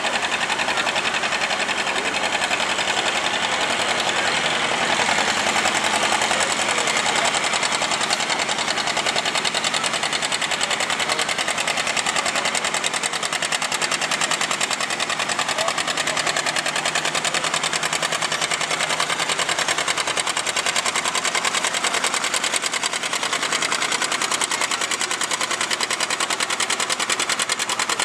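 Two-cylinder John Deere tractor engine idling with a rapid, even popping beat.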